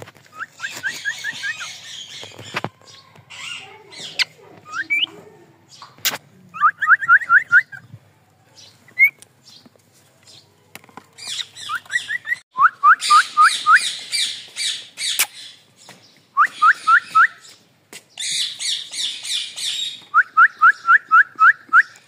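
Cockatiel chirping and chattering at its reflection in a mirror: repeated runs of five to seven quick rising chirps, mixed with harsh, scratchy chatter. A few sharp taps fall in between.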